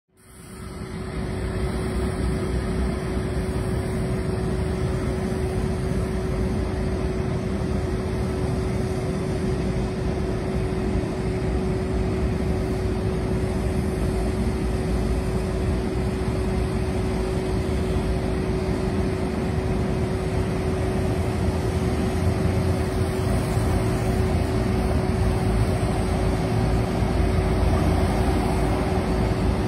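Road traffic noise from a convoy of heavy trucks coming down a wide road, the low engine and tyre noise growing slightly louder near the end. A steady hum runs underneath.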